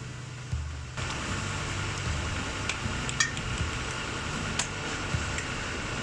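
Steady workshop machinery hum with a few light metallic clinks as a car suspension arm and its parts are handled.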